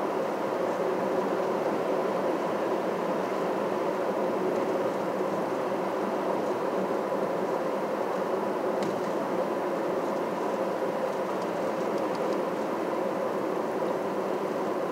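Steady road and engine noise of a vehicle driving, with a few faint ticks in the second half.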